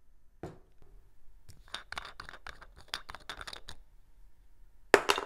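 Glass Chivas Regal 12 whisky bottle handled right at the microphone: a run of quick small clicks and scratches in the middle, then a sharp double knock near the end that rings on briefly.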